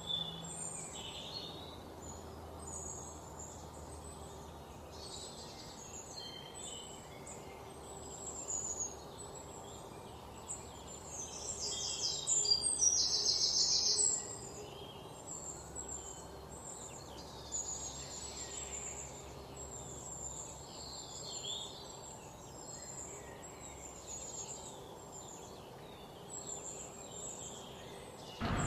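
Background ambience with small birds chirping, many brief high calls scattered throughout. About halfway through, a louder, denser high trill lasts about two seconds.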